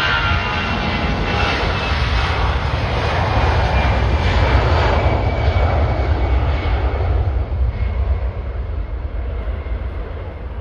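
Jet airliner passing close by: a steady engine roar with a faint high whine that slowly drops in pitch. It is loudest about four to five seconds in, then fades.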